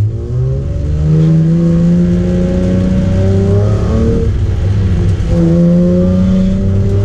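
Nissan 370Z's V6 engine heard from inside the cabin, pulling hard under full throttle with its note climbing. It breaks off for an upshift about four seconds in, then climbs again in the next gear.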